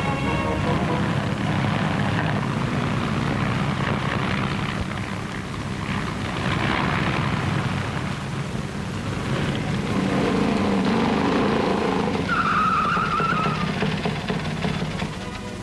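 Motorcycle engines running during a motocross race. Music comes back in near the end.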